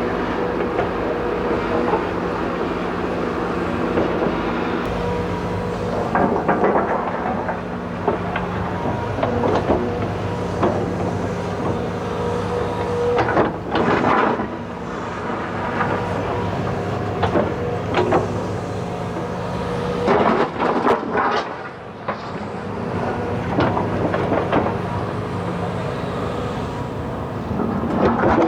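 Hidromek 220 LC hydraulic excavator's diesel engine running steadily under working load, with sharp metallic clanks now and then as the bucket and tracks work soil.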